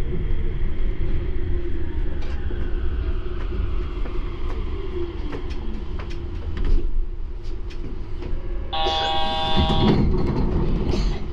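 Yurikamome rubber-tyred automated guideway train running with a steady low rumble and a faint motor whine that shifts in pitch. About nine seconds in, a bright multi-tone ringing sounds for just over a second, followed by a short hiss.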